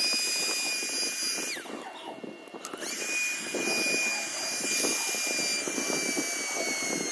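Small handheld cordless vacuum's motor running with a high whine. It is switched off about a second and a half in and the whine falls away, then it is switched back on a second later and runs until it cuts off at the very end.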